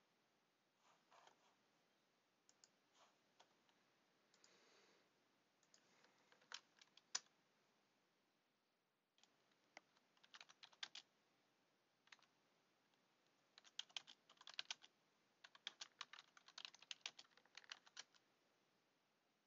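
Faint typing on a computer keyboard, in several short bursts of keystrokes with pauses between them, the longest and busiest run in the second half.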